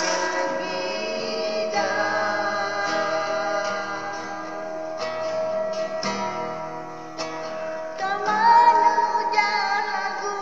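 Guitar played as accompaniment to a singing voice, with plucked chords under held notes; about eight seconds in the voice rises into a loud, wavering held note.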